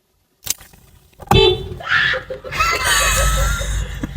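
A car horn gives a short blast about a second in, followed by a few seconds of loud commotion with a high, wavering cry.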